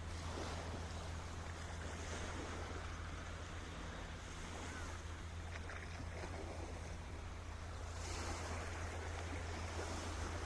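Sea waves washing in and breaking, swelling in loudness every few seconds, over a steady low hum.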